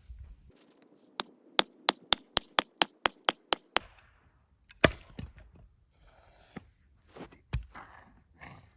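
Wood being chopped for a campfire: a quick run of about a dozen sharp knocks at roughly four a second, then a few heavier single strikes, the loudest about five seconds in.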